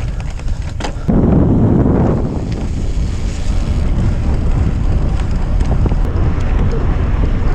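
Wind buffeting the microphone of a bicycle riding fast on a gravel road, over the low rumble of the tyres on gravel. It gets louder about a second in for about a second.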